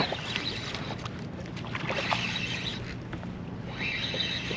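Water lapping around a kayak with wind on the microphone, and two short rushing noises about two and four seconds in.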